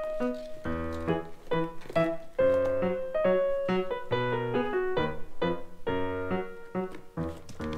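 Background piano music: a light melody of single notes struck a few times a second over low bass notes.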